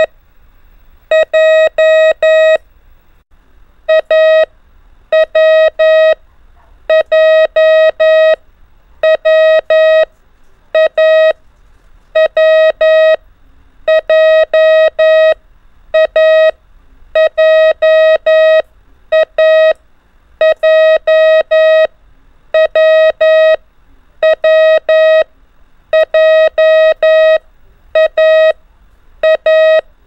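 Morse code practice tones: one steady beep keyed on and off into dots and dashes, sending the letters A, W and J in mixed order, about one letter a second with short pauses between letters.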